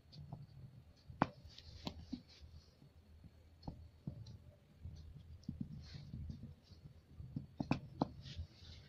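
Pastel scratching and the hand rubbing across drawing paper in short strokes, with several sharp clicks or taps scattered through, the loudest about a second in and near the end, over a low hum.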